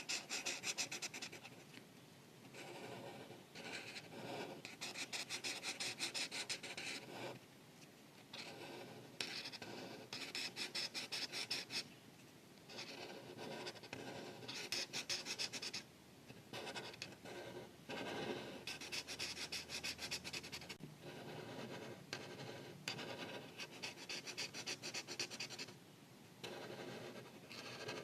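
Art marker tips scratching across paper in quick back-and-forth colouring strokes, in bursts of a few seconds with short pauses between.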